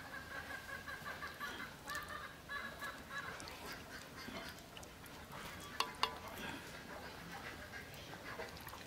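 Waterfowl calling, a string of short repeated calls through the first three seconds. About six seconds in, a steel ladle clinks twice against a metal cooking pan.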